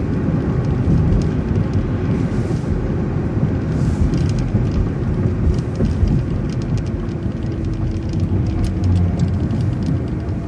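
Transit bus heard from on board: a steady low rumble of engine and road noise, with small rattles clicking throughout.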